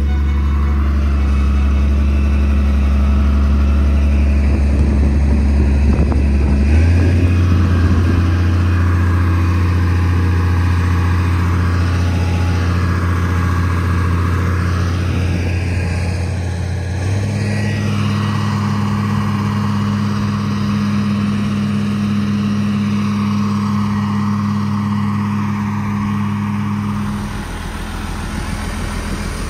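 Diesel engine of a Komatsu GD505A-2 motor grader running steadily under load while it tows a caravan on a cable. The steady low drone steps up in pitch twice, about a quarter of the way in and again past halfway, then drops back near the end.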